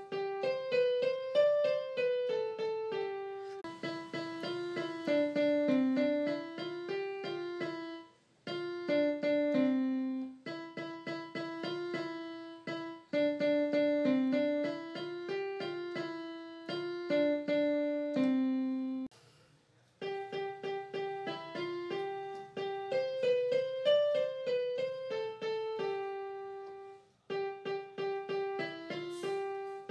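Background piano music: a melody of single notes over a lower accompaniment, with brief breaks a third of the way in, about two-thirds in and near the end.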